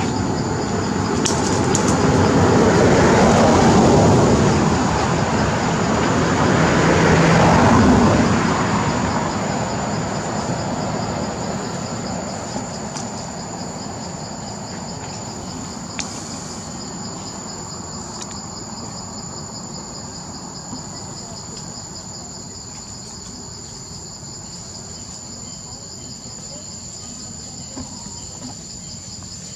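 Steady chorus of insects: a high, even drone with a faster pulsing band just below it. Over the first ten seconds or so a broad rushing noise swells twice, loudest around four and eight seconds in, and then fades away under the insects.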